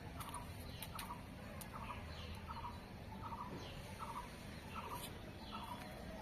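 A bird calling over and over, one short note repeated at an even pace, a little more than once a second, with fainter higher falling notes between them, over a steady low background rumble.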